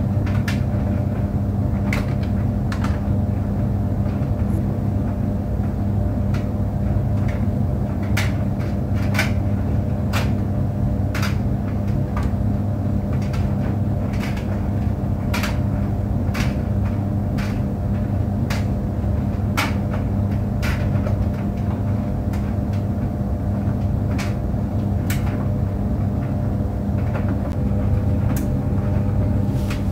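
Tumble clothes dryer running: a steady low motor-and-drum hum, with irregular sharp clicks and knocks about once a second as the load tumbles against the drum.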